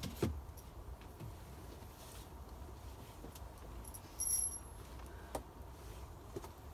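Wooden planks being handled and laid for a floor: a sharp knock just after the start, then a few lighter knocks and clatters. A brief high-pitched tone sounds a little over four seconds in.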